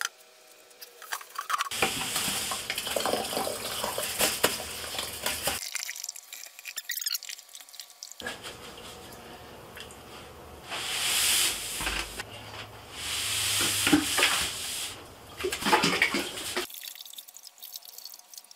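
Water and old resin beads pouring out of a tipped water softener resin tank into a plastic 5-gallon bucket, the tank being emptied. Two pours: a shorter one about two seconds in, and a longer one from about eight seconds in with two stronger gushes.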